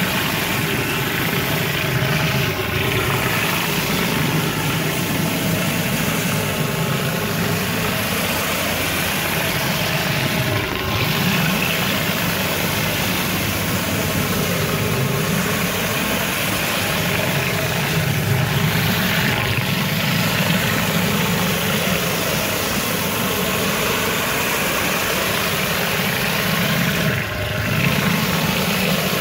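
Hot-water pressure washer running steadily, its engine drone under the hiss of a rotary surface cleaner spraying near-boiling water over paver joints to flush out polymeric sand. The spray dips briefly a few times.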